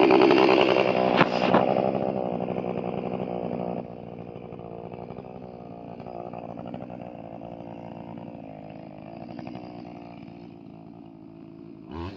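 Chainsaw engine running, loud for the first few seconds, then dropping to a quieter steady run about four seconds in.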